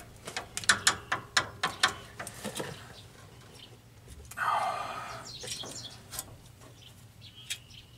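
A quick run of sharp metallic clicks, about five a second, as a wrench works a seized, rusted brake-line flare nut under a 1984 Ford F-250. Midway there is a short squeak falling in pitch, then a few more scattered clicks.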